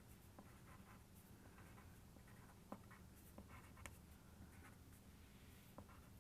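Faint scratching of a drawing tool on paper: a few short strokes and light taps, over a steady low room hum.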